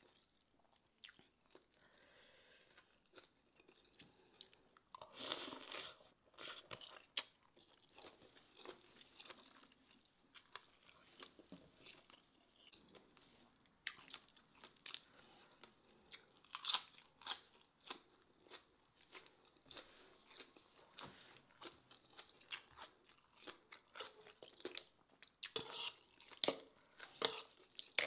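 A person eating seafood papaya salad with raw leafy greens close to the microphone: irregular crunching, biting and chewing, with a denser, louder spell of crunching about five seconds in.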